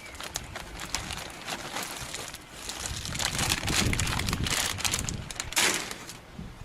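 Peanuts poured out of a bag for the birds: a dense, irregular rattle of small clicks with bag rustling, busiest in the middle and with a sharp rustle near the end.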